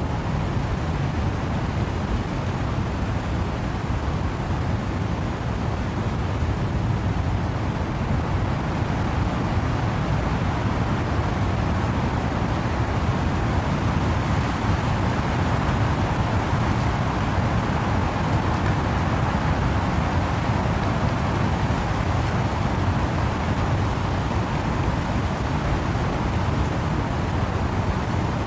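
Wind and rain in trees as a steady, dense rush with a deep rumble underneath, swelling a little around the middle.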